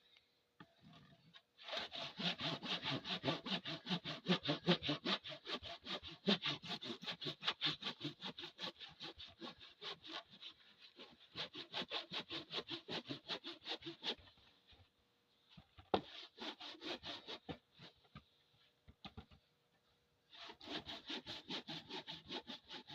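Hand saw cutting through a cedar log in even back-and-forth strokes, about three a second. The sawing stops about fourteen seconds in, comes back briefly, pauses again, then resumes near the end.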